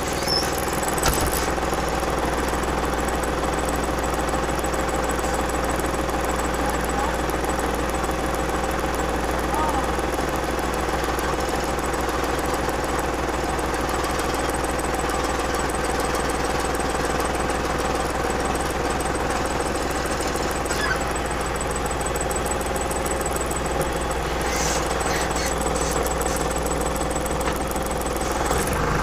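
Torpedo TD 55 tractor's diesel engine running steadily at an even, unchanging speed, heard close up from the bonnet.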